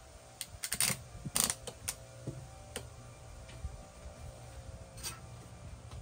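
Sharp clicks and light knocks as a trigger-action bar clamp is squeezed tight onto a plywood sheet, bunched in the first couple of seconds, followed by a few scattered ticks of tool handling.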